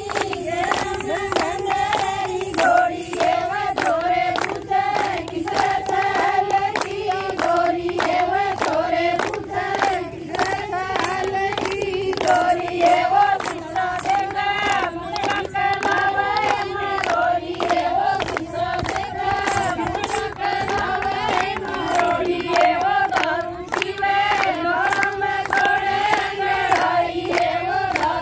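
A group of women singing a folk song together, keeping time with steady hand-clapping about two claps a second.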